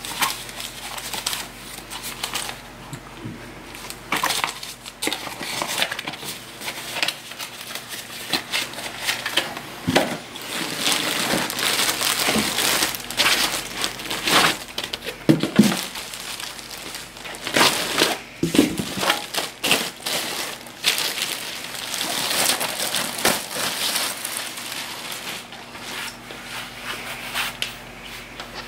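Plastic wrapping and foam packing crinkling and rustling under the hands as items are unpacked from a cardboard box, with scattered short knocks from handling.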